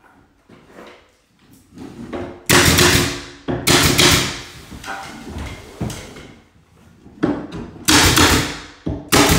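Pneumatic nail gun firing nails through crown molding, several sharp shots a second or more apart, with smaller knocks between.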